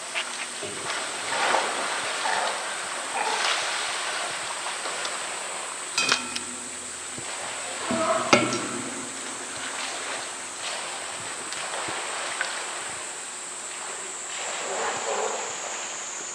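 Water splashing and sloshing as a polar bear enters and swims in its pool, with two sharp knocks about 6 and 8 seconds in.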